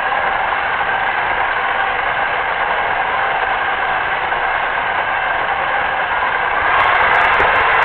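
Steady whirring of a small radio-controlled model's electric drive, picked up by the onboard camera as it moves across the floor. It grows a little louder about seven seconds in.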